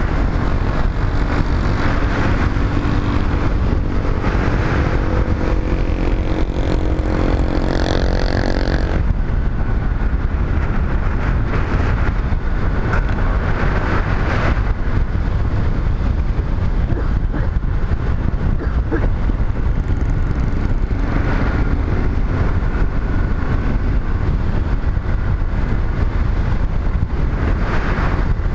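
Motorcycle riding at speed along a road: a steady rush of wind buffeting the microphone, over engine and tyre noise. A humming tone runs through the first nine seconds and cuts off suddenly.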